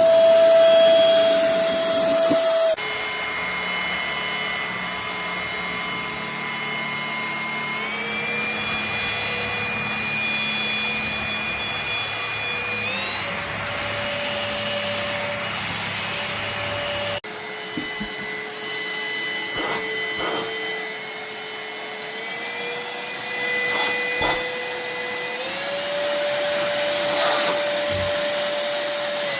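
MBYULO 450 W cordless stick vacuum running with a steady high motor whine. Its pitch steps up twice in each stretch, and the sound jumps abruptly about 3 s and 17 s in. A few faint clicks come in the second half.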